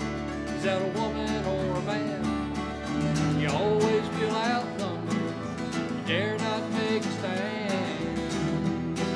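Several acoustic guitars strumming chords together in an instrumental passage, with a melody line on top whose notes bend and slide in pitch.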